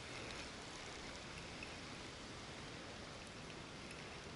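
A steady, even hiss of water with a few faint ticks, and no distinct events.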